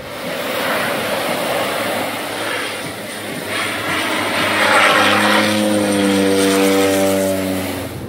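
Single-engine turboprop plane flying over. Its rushing engine noise builds, and from about halfway a droning propeller tone joins it, dropping slightly in pitch near the end.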